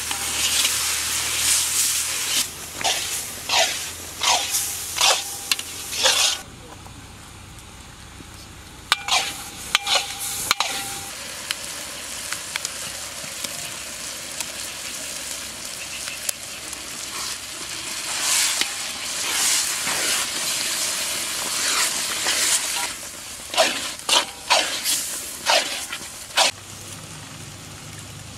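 A metal ladle scraping and stirring onion-tomato masala in a large iron kadai over a wood fire, with the masala sizzling in the oil. Quick runs of scraping strokes come at the start and again in the last third, with a stretch of steady sizzling between them.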